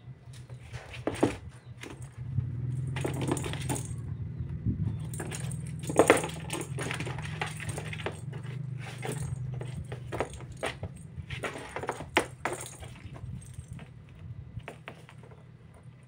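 A small plastic cat toy ball with a bell inside, jingling and rattling in irregular bursts as a kitten bats it and rolls it around a cardboard box. A low steady hum runs underneath from about two seconds in until near the end.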